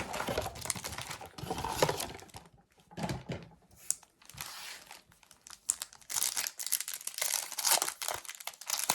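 Trading-card packaging being torn open: the plastic wrap and foil packs of a basketball card blaster box crinkling and tearing, with a sparser stretch in the middle and denser crinkling near the end.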